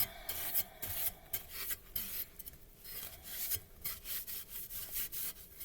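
A Mainstays 9-inch fan blade being wiped off by hand, a run of short, irregular rubbing strokes.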